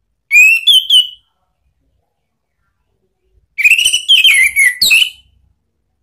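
Orange-headed thrush singing: two loud phrases of clear, slurred whistled notes, a short one near the start and a longer, more varied one about three and a half seconds in.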